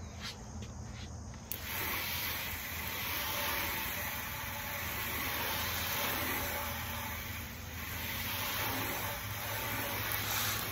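Water spraying from a hose onto a car's headlight and front bumper: a steady hiss that starts about a second and a half in, rinsing off the polishing compound after the headlight restoration.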